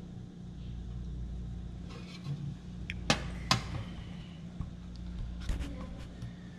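Sharp clicks and knocks from handling a steel tent stove, the two loudest about half a second apart a little after the middle, over a steady low hum.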